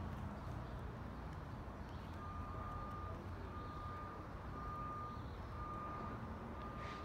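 A vehicle's reversing alarm beeping at one steady pitch, about once a second, starting about two seconds in, over a low steady rumble.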